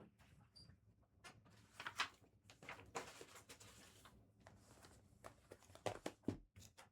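Faint rustling and clicks of trading-card packs being handled and torn open, with cards sliding against each other.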